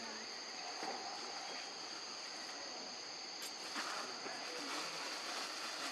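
Steady high-pitched drone of insects, a cricket-like chorus that holds unchanged throughout.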